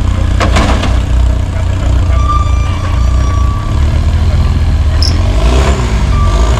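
Rock crawler buggy's engine running under load as it climbs boulders, with a sharp knock about half a second in and a high whine that comes and goes.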